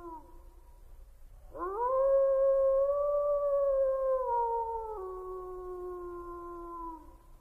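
A wolf howl. The end of one howl falls away at the start, then after a short pause a new howl rises sharply, holds its pitch, steps lower twice and falls away near the end.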